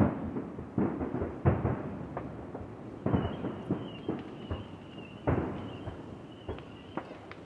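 Distant aerial firework shells bursting, about ten booms spaced roughly a second apart, each trailing off in a rumbling echo.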